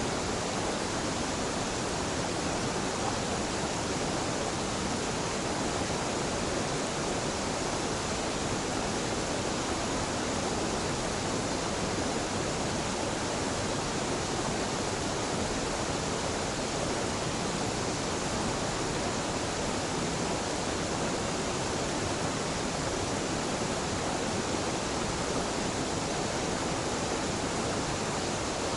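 Small mountain waterfall pouring and splashing steadily into a stream, an even rushing that does not change.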